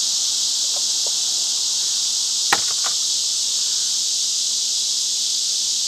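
Steady, high-pitched drone of a chorus of insects. A single sharp click comes about two and a half seconds in, with a fainter one just after.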